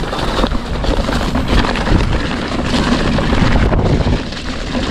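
Wind buffeting the microphone of a camera on a moving mountain bike: a loud, steady low rumble.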